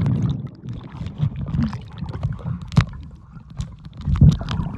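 Pool water heard through a submerged camera microphone: a dull, muffled sloshing and bubbling with scattered clicks, swelling louder about four seconds in.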